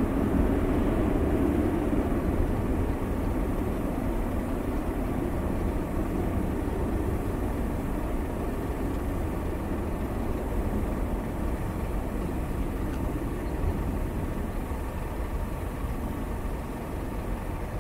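Jet engines of a twin-engine widebody airliner climbing away after takeoff, a steady low rumble that slowly fades as it gains distance.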